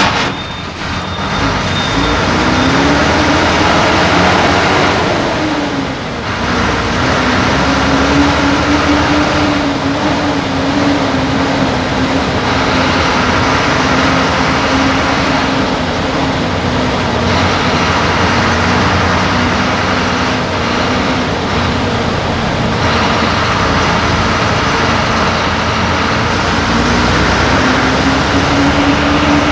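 Diesel bus engine running as heard inside the cab while driving slowly in traffic, its pitch rising and falling with the revs over steady road noise.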